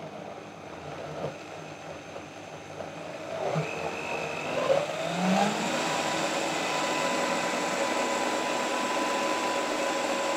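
High-performance blender motor puréeing a thick pea-and-dill cream: it runs low for a few seconds, rises in pitch as it speeds up about four seconds in, then runs steadily.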